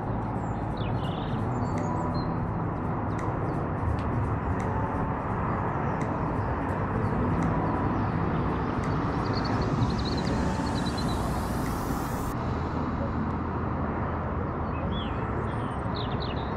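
Steady wind noise rumbling on the microphone, with a few faint bird chirps over it.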